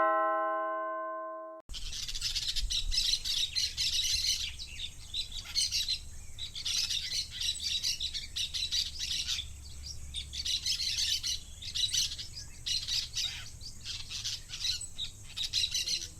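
A two-tone doorbell chime rings out and fades over the first second and a half. A parakeet then chirps and chatters continuously over a faint low hum.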